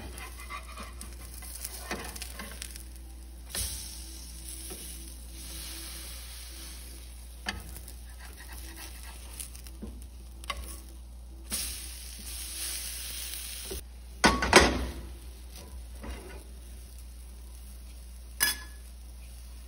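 Chickpea-flour vegetable fritters sizzling steadily in hot oil in a frying pan, with a metal spatula knocking and scraping against the pan now and then as they are turned. The loudest clatter comes about three-quarters of the way through.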